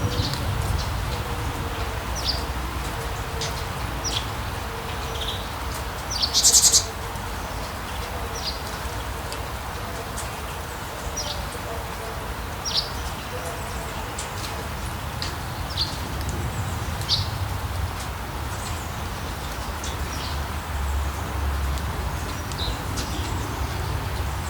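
Steady rain falling, with a low rumble beneath it and birds giving short chirps every second or two. One louder, sharper call comes about six and a half seconds in.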